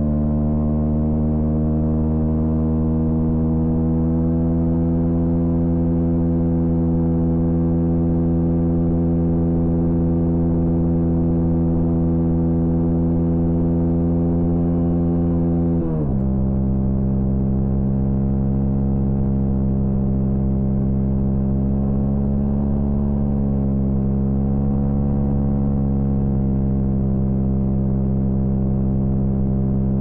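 Honda CB125R's single-cylinder four-stroke engine pulling hard in gear, its pitch climbing slowly for about sixteen seconds. Then it drops suddenly at a shift up a gear and holds fairly steady.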